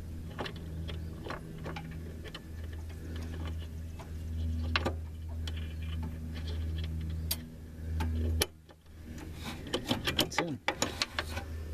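Small metal clicks and ticks as a new locking pin is fitted by hand into a riding mower deck's tension bracket. The clicks are irregular and come thicker in the last two seconds, over a steady low hum.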